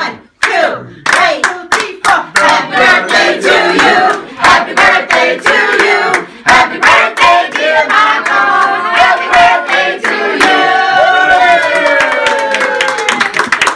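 A small group singing a birthday song together in time with steady hand-clapping, ending with a long drawn-out note and cheers.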